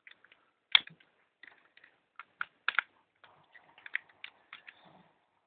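Hard plastic toy parts of a Dino Megazord figure clicking and knocking as they are handled and the Mastodon head is worked into place: irregular clicks, with a couple of louder snaps about a second in and near the middle.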